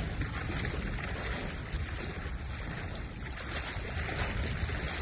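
Steady rushing noise of floodwater running through a flooded street.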